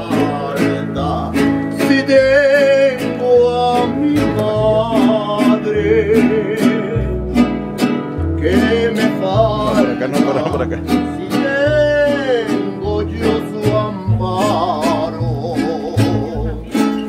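Instrumental song introduction: strummed guitars keep a steady rhythm under a bass line, with a wavering bowed violin melody on top.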